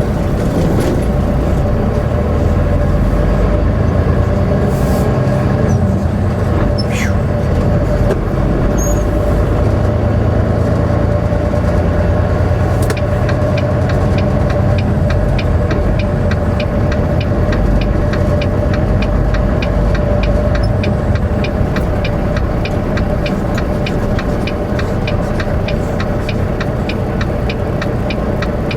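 Semi truck running down the road, heard inside the cab: a steady low engine and road rumble with a constant hum, and from about halfway a fast, even ticking.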